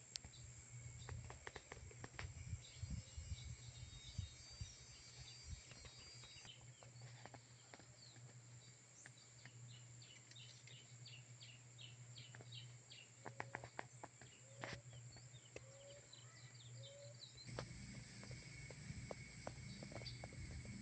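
Quiet countryside ambience: faint birds chirping in quick series, with a few short low whistled calls, over a steady high-pitched hum and scattered small clicks.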